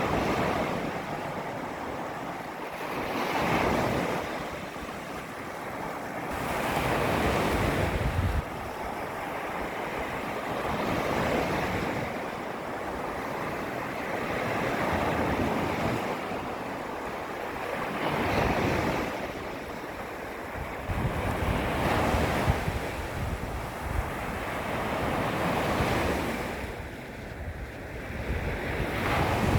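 Small waves lapping against a beach shoreline: a soft wash that swells and fades about every three to four seconds. Now and then wind rumbles on the microphone.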